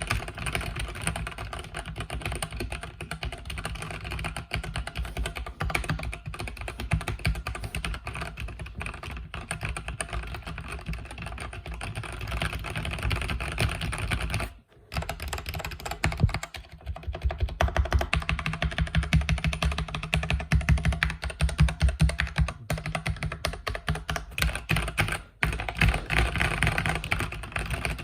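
Continuous typing on a mechanical keyboard with red linear switches, a rapid patter of keystrokes. The typing pauses for a moment about halfway through, then comes back louder and busier for several seconds.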